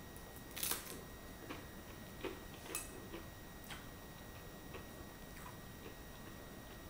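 A sharp crunch as a hummus-spread cracker is bitten, followed by a string of faint, irregular clicks and crunches from chewing and from a knife scraping in a plastic hummus tub.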